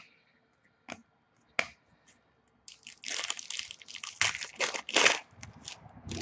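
A few sharp taps as trading cards are handled, then about three seconds of crinkling and tearing as a trading-card pack wrapper is ripped open.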